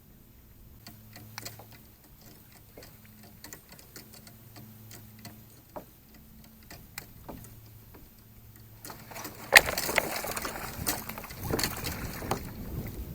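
Scattered light ticks and clicks, like fishing tackle being handled and a reel being worked from a kayak. About nine and a half seconds in comes a sharp knock, followed by a few seconds of louder, rough noise.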